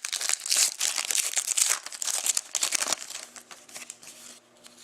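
Crinkly wrapper of a Panini Contenders hockey card pack being torn open and crumpled, with dense crackling for about three seconds, then dying down to a few faint rustles and clicks.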